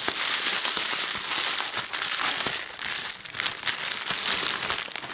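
Clear plastic bubble wrap crinkling and rustling as it is handled and pulled out of a shipping box, continuous with a few short lulls.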